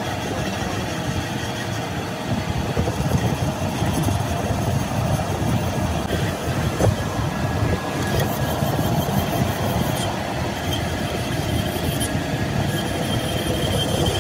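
Metal lathe running under load, a cutting tool facing the end of a large spinning steel workpiece with a steady rumble. A thin, higher steady tone joins near the end.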